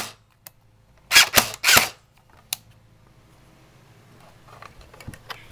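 DPMS A17 electric airsoft rifle firing on full auto, powered by an 8.4 V 1100 mAh NiMH battery. A burst cuts off at the very start, then three short bursts come about a second in, followed by a single click.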